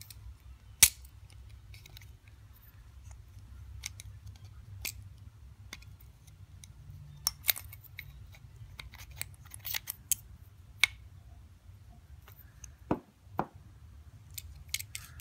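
Scattered sharp clicks and light taps of small metal parts being handled while a Shimano Calais baitcasting reel is taken apart, the spool and side plate being worked loose. One sharp click about a second in is the loudest, with more clicks around the middle and near the end, over a steady low hum.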